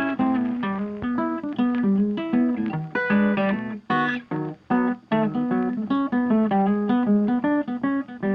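Background music: guitar playing a run of plucked and strummed notes.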